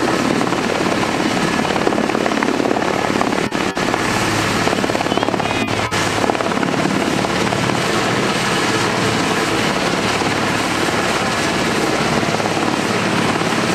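Super Puma helicopter hovering low and lifting a heavy slung load: a loud, steady rotor and twin-turbine roar. It dips briefly twice, a few seconds in.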